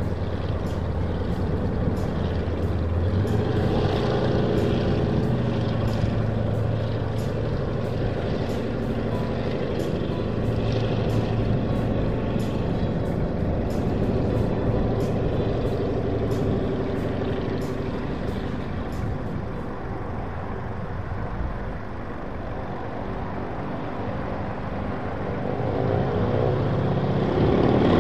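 Light propeller airplane's piston engine running steadily with a low hum, getting louder and rising in pitch near the end.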